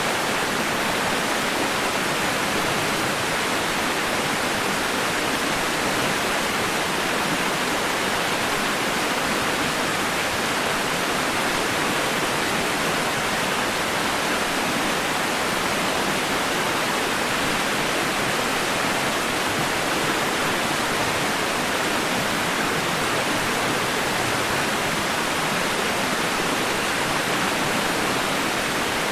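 White noise: a steady, unchanging hiss with little deep rumble.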